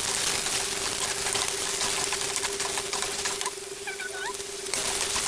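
Sliced onions sizzling and crackling in hot oil with mustard seeds in a steel pan as a spoon stirs them. The sizzle dies down for about a second around three and a half seconds in, then picks up again.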